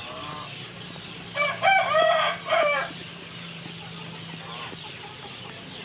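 A rooster crowing once, about a second and a half in: a loud call in several joined parts lasting about a second and a half.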